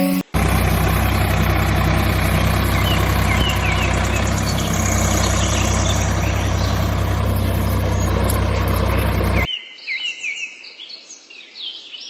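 A steady engine-like drone with a low hum, with birds chirping over it; it cuts off abruptly about nine and a half seconds in, leaving only birdsong.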